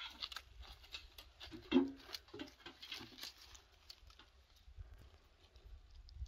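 Dry twigs and branches of a quince tree rustling and crackling in irregular light clicks as a hand reaches in to pick the fruit, with one short louder sound about two seconds in.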